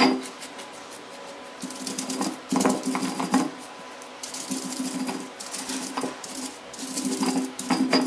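Stone roller rolled back and forth by hand over a flat grinding stone (ammikal), crushing grated coconut with shallots and dried chilies into a coarse chammanthi. It makes repeated, uneven gritty scraping strokes.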